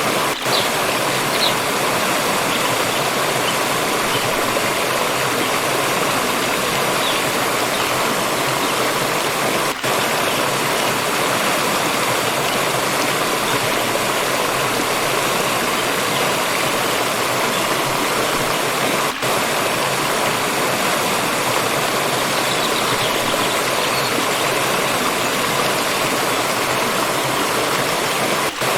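Water stream rushing and splashing steadily over rocks, with a brief dip in level about every nine to ten seconds.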